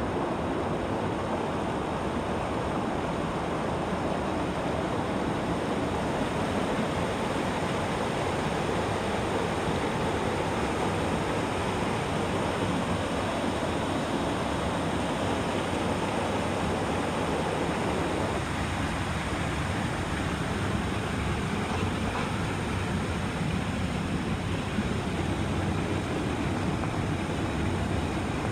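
Mountain brook running over rocks: a steady, even rush of water, its tone shifting slightly about eighteen seconds in.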